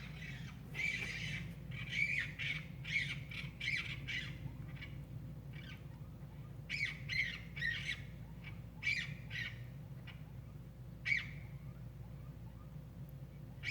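Weird animal calls from outside: runs of short, harsh calls in quick succession about a second in and again around seven seconds in, with one more call near eleven seconds. A steady low hum runs underneath.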